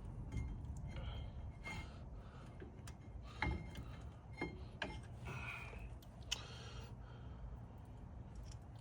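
Scattered light clicks and taps of hand tools and brake parts being handled during a brake pad and caliper job, over a low steady hum.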